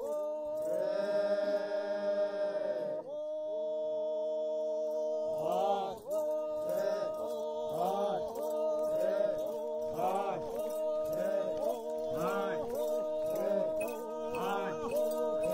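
Background music: a chant-like voice over a steady drone, with a short melodic phrase repeating about once or twice a second from about five seconds in.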